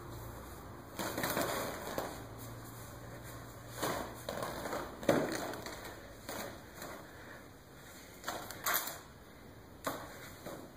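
A white disposable protective coverall being torn and pulled off the body, in a series of short rustling, ripping bursts with pauses between them.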